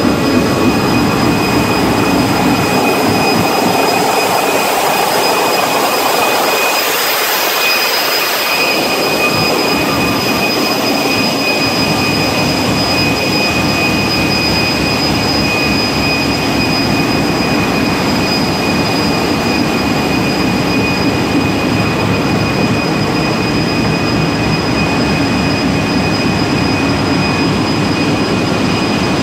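Loud, steady din of a cruise ship's engine room: the diesel generator engines and auxiliary machinery are running, with a constant high whine over the rumble. The deep rumble thins out for a few seconds early on, then comes back.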